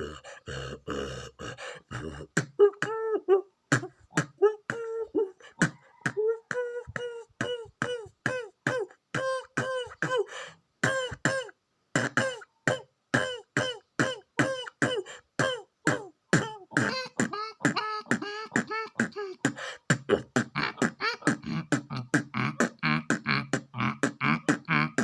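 A person beatboxing drum-kit sounds with the mouth: a fast, steady run of vocal kick, snare and hi-hat hits, many with a short voiced tone, and a brief break about halfway through.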